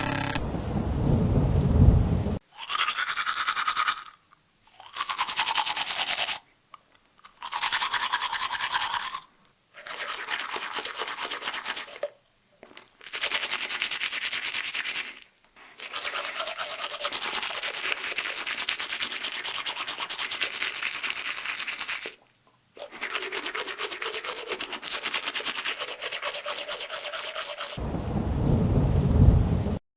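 Teeth being brushed: spells of scrubbing, each a second to several seconds long, broken by short pauses. A loud low sound is heard for the first two seconds and again near the end.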